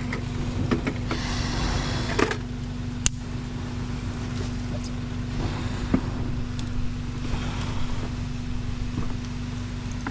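Meat and turban shells sizzling on a charcoal grill, with a few sharp crackles from the fire, over a steady low hum.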